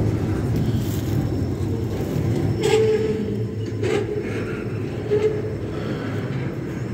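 Tail end of a double-stack intermodal freight train rolling away: a steady rumble of steel wheels on rail, with a few sharp clicks and brief squeals about three and four seconds in.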